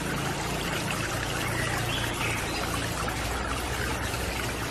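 A steady rushing, water-like noise with a low steady hum beneath it.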